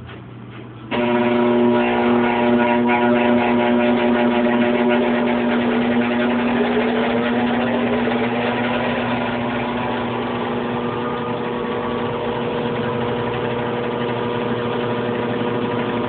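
An old, worn-out machine's motor starts abruptly about a second in and runs with a loud, steady, rumbling drone with a rough rattle in it.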